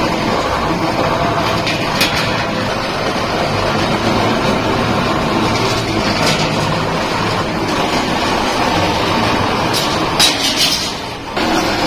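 Steady mechanical running noise, with a few sharp metallic knocks and a cluster of them near the end.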